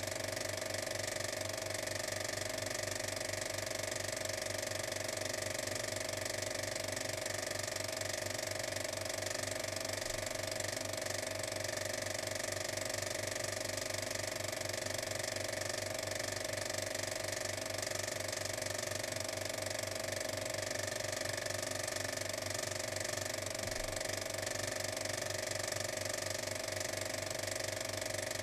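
Steady, fast, even mechanical clatter that runs on unchanged, like a small machine running.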